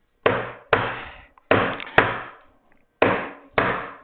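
Mallet striking a chisel chopping a mortise in oak: six sharp blows in pairs, about half a second apart, each pair followed by a short pause.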